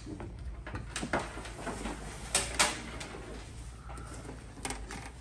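Heavy-duty canvas soft-top hood being handled and unfolded by hand: thick fabric rustling and sliding, with a few short sharp knocks.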